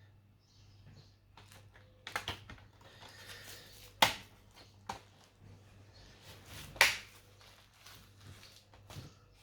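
Sharp clicks and knocks of hands working on a laptop during disassembly, the two loudest about three seconds apart, over a low steady hum.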